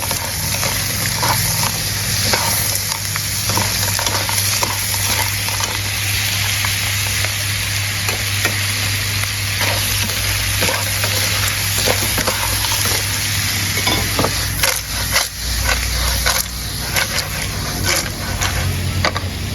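Shellfish sizzling as they stir-fry in a hot pan, with a spatula scraping and tapping against the pan while they are stirred; the taps come thicker near the end.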